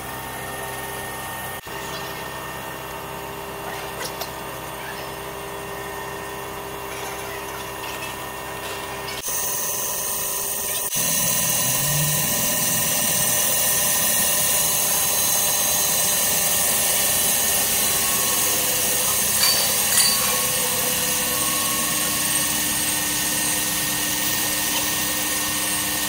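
CNC wheel repair lathe running, spinning an alloy wheel while the diamond cutting tool machines its face: a steady mechanical hum with several held tones. About eleven seconds in it turns abruptly louder and hissier.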